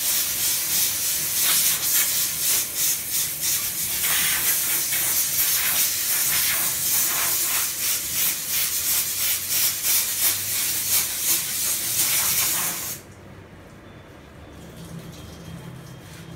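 Handheld steam cleaner gun blasting steam onto a kitchen exhaust fan: a loud high hiss that pulses rapidly and cuts off sharply about three seconds before the end.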